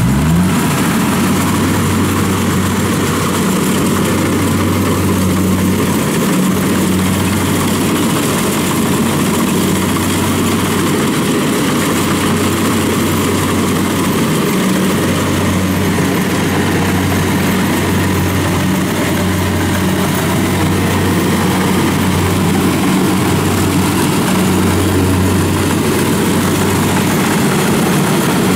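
Kubota DC70 rice combine harvester's diesel engine revving up at the very start, then running steadily under working load, with an even rushing machinery noise over the engine's drone.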